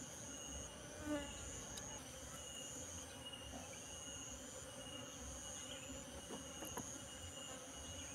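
Asian honey bees (Apis cerana) buzzing steadily around an opened wild comb, over constant high-pitched insect trilling from the grass. A few faint knocks of wood being handled.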